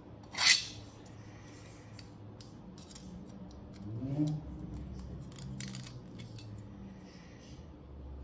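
3D-printed plastic parts being handled and fitted together: one sharp plastic clack about half a second in, then scattered small clicks and scrapes. About four seconds in, a short rising squeak as a printed part rubs along the plastic tube.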